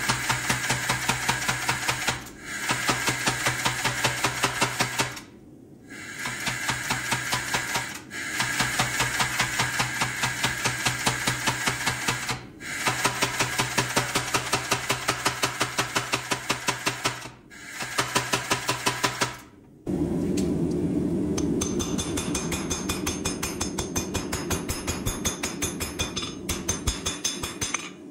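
Kinyon-style pneumatic power hammer striking a hot bar of W2 steel in fast runs of blows, about six a second, broken by short pauses every few seconds. About twenty seconds in, the sound changes to a steady run of lighter, quicker knocks.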